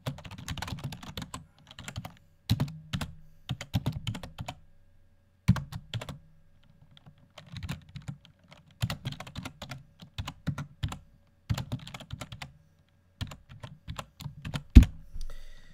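Typing on a computer keyboard: quick runs of keystrokes separated by short pauses, with one harder key strike near the end.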